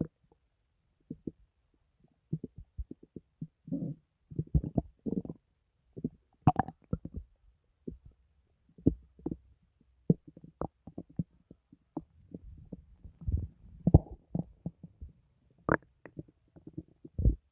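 A person's stomach gurgling and rumbling in an uneven run of short pops and bubbling gurgles, with longer, louder gurgles about four seconds in, near the middle and toward the end.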